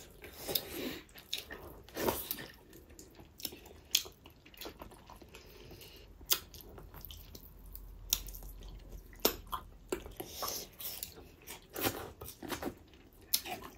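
Close-miked chewing of pickled pork feet (sungur ko khutta ko achar): irregular wet smacks and sharp mouth clicks as pieces are bitten and chewed.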